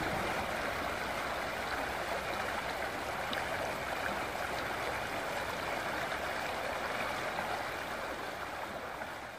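Muddy floodwater rushing and churning over rocks in a shallow stream bed, a steady rushing noise that eases slightly near the end.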